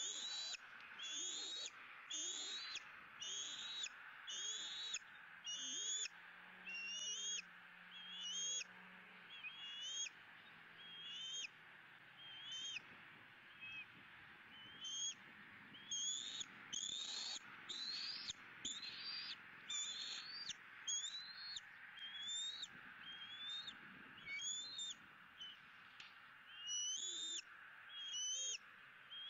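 Bald eagle calling: a long, regular series of short, high, rising whistled chirps, about one to one and a half a second. The series slows and pauses briefly around the middle, then picks up again.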